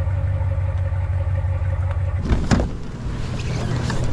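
A truck's engine running with a steady low hum. About two seconds in come two sharp clicks, the door being opened, and the sound opens up to the outside air.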